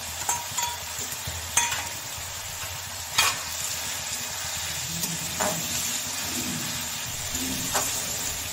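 Chopped capsicum, onion and tomato frying and sizzling in mustard oil in a metal kadai while being stirred, with metal utensils knocking against the pan about six times, loudest about three seconds in.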